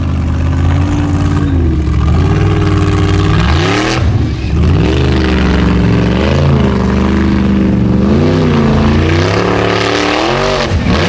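Formula Offroad unlimited-class buggy's engine revving hard on a steep dirt climb. Its pitch is held high, drops sharply about four seconds in, then swells up and down several times as the throttle is worked. A rushing hiss of spinning paddle tyres throwing dirt runs underneath.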